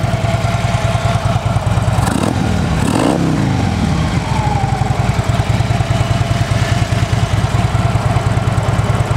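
Harley-Davidson Street Glide Special's 103 cubic inch V-twin idling steadily through Vance & Hines aftermarket mufflers, an even, pulsing low beat.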